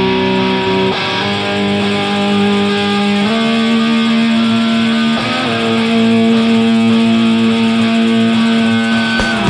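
Background music with long held chords that change every couple of seconds.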